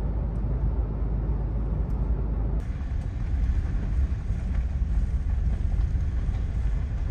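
Steady low rumble of a vehicle driving along, road and engine noise heard from inside the vehicle.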